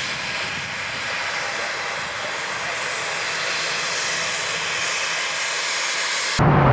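Cessna Citation X's twin turbofan engines running steadily at taxi power, an even high-pitched hiss. Just before the end it cuts abruptly to a louder, deeper aircraft sound.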